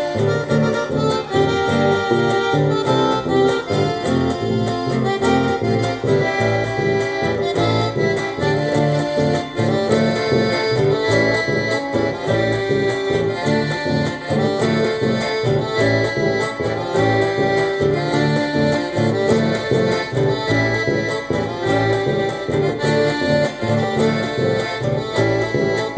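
Button accordion playing a lively chamamé tune, with chords and a moving melody over a steady bass line.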